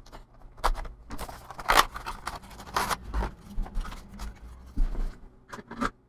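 Clicks and scrapes of a Samsung 860 Evo SSD being handled and pushed into a USB drive caddy: a run of short sharp clicks with a couple of longer scrapes about two and three seconds in.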